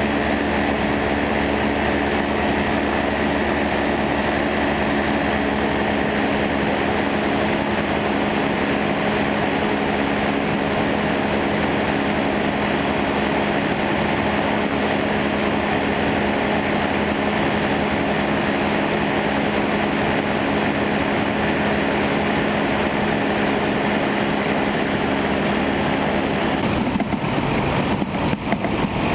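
Motorised hang-glider trike's engine and propeller running steadily at a constant speed of about 4800 rpm. The sound turns briefly uneven near the end.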